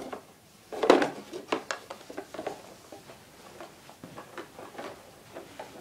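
Plastic push-along baby walker knocking and rattling as it is turned and pushed over a wooden floor and rug. A sharp knock comes about a second in, then lighter irregular clicks and clatters.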